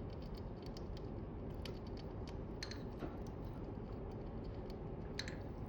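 Chipmunk eating a snack: many quick, small crunching clicks, with two sharper little bursts, one about halfway through and one near the end, over a steady low background hiss.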